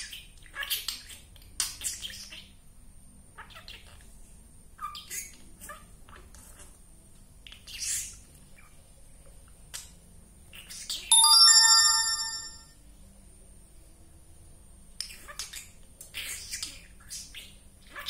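Green budgerigar chattering and squawking in short scattered bursts. About 11 seconds in, a loud ringtone-like chime of several steady tones sounds for about a second and a half.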